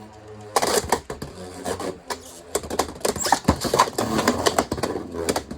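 Two spinning Beyblades clashing in a plastic stadium: a custom 3D-printed attack-type bey hitting a Beyblade X top in a fast, irregular rattle of plastic clicks and knocks. There is one sharp hit about midway.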